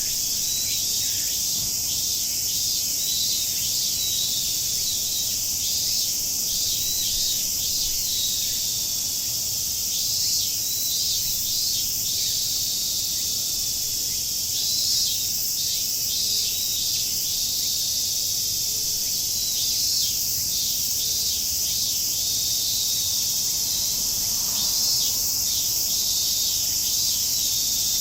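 Chorus of cicadas in full summer song, a steady, dense, high-pitched buzz, with birds chirping in short clusters of quick falling notes every few seconds.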